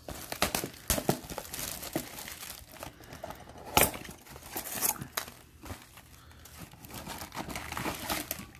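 Clear plastic wrap crinkling and tearing by hand, an irregular run of crackles with one sharp, loud crack about four seconds in, as a sealed trading-card box is unwrapped.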